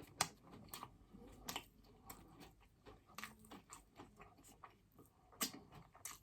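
Close-miked chewing of food, with irregular wet mouth clicks and smacks; the sharpest clicks come just after the start and near the end.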